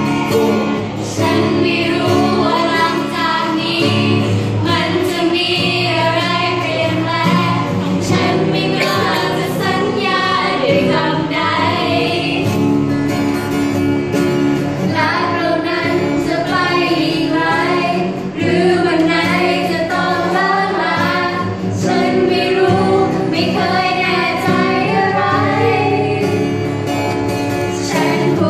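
A group of young female voices singing a song together, accompanied by a strummed acoustic guitar.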